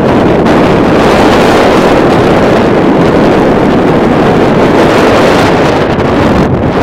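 Strong gusty wind buffeting the camera's microphone, a loud steady rumbling rush that eases slightly near the end.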